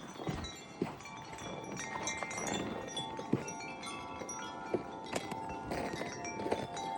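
Wind chime ringing in gusty wind, many overlapping tones sounding on and off, with a few light knocks.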